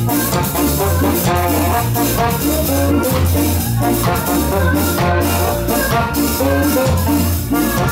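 Live ska band playing: trombone and saxophone over a steady, repeating bass line and drum kit.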